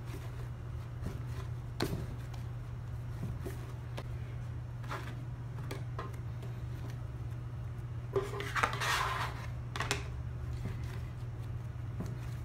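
A plastic bench scraper and hands knocking and scraping on a wooden counter while dough is divided and shaped: a few scattered clicks and taps, and one louder scraping rattle about eight seconds in. A steady low hum runs underneath.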